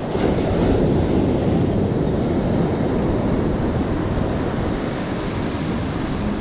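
Ocean surf washing on the shore, swelling about a second in and then a steady rush, with wind on the microphone.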